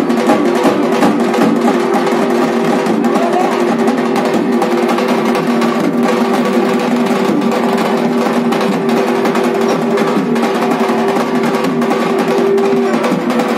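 Loud, rapid continuous drumming on shoulder-slung drums, like a drum roll, with a steady held tone underneath.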